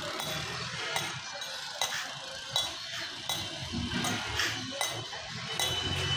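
Regular hammer blows, about one every three-quarters of a second, each a sharp clinking knock, as a hammer works at the base of a wooden pallet under a stack of speaker cabinets. Road traffic rumbles underneath.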